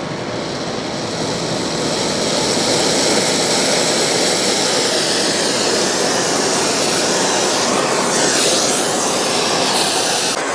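Brazing torch flame burning with a steady rushing roar while it heats a cast vise spindle nut for brazing; the hiss grows a little brighter in the second half.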